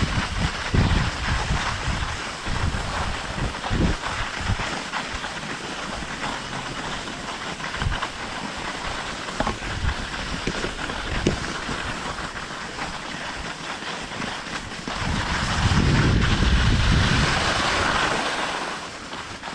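Wind buffeting the microphone of a moving skier, mixed with the hiss of skis sliding over snow, growing louder for a few seconds near the end.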